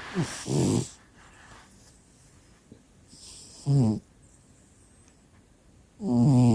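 Cat snoring in its sleep: hissy breaths, each followed by a short pitched snore, with a longer snore of about a second near the end.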